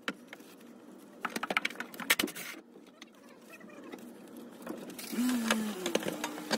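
Scattered clicks and knocks of a tool being handled. About five seconds in, a handheld cordless power tool with a 10 mm socket runs for about a second and a half on a charcoal canister mounting bolt, with a low whirring tone that shifts in pitch.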